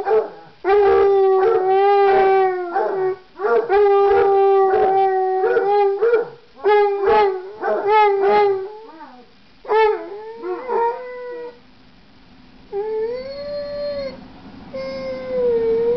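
Two basset hounds howling together: long, steady howls with quick yelping cries over them, breaking off and starting again every couple of seconds. In the last few seconds it turns quieter, with a few shorter howls that rise and fall.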